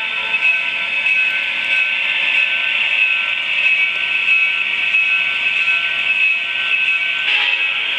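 HO-scale model diesel locomotives running slowly on the layout track, giving a steady high whir and hiss with a thin whine in it. A short burst of lower tones joins near the end.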